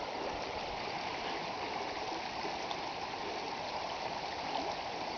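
Shallow, muddy flash-flood runoff flowing over gravel and stones in a dry desert wash, a steady rushing and trickling as the flood's volume starts to build.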